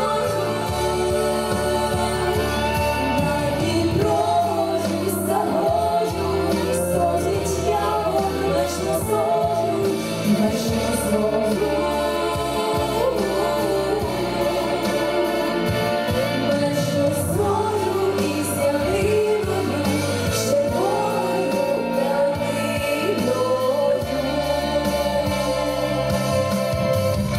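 A song sung with instrumental accompaniment, the melody moving throughout.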